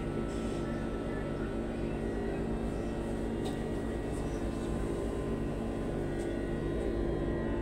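Interior of a Solaris Urbino 18 IV Electric articulated bus on the move: steady electric drive hum with several held tones over low road rumble, and a low hum that pulses about twice a second.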